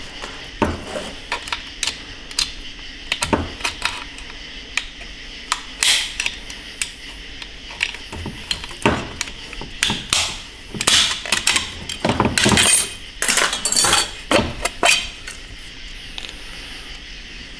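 Metal parts of a 6L80 automatic transmission's clutch drum clinking and clattering as they are taken apart by hand, in many separate sharp knocks that come thickest past the middle and thin out near the end.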